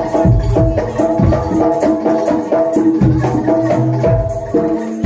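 Javanese jaranan dor ensemble playing: a quick, repeating run of short pitched percussion notes over deep drum strokes.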